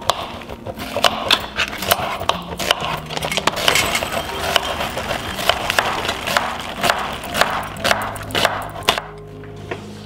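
Food-prep sounds: rapid knife chops on a wooden cutting board mixed with the scrape of cheese on a box grater, over soft background music. The chopping and scraping stop about a second before the end, leaving the music.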